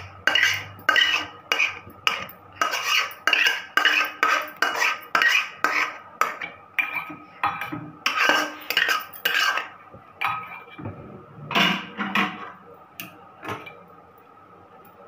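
Metal spatula scraping chutney out of a metal kadai, knocking against the pan and a stainless steel bowl in a quick run of clanks and scrapes, about two a second. They thin out after about ten seconds and die away near the end.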